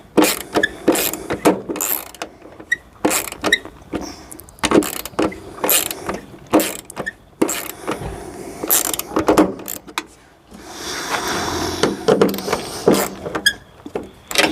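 Small 1/4-inch-drive hand ratchet clicking in quick irregular runs as it tightens fasteners on a van's rear-door window, with a stretch of scraping about ten seconds in.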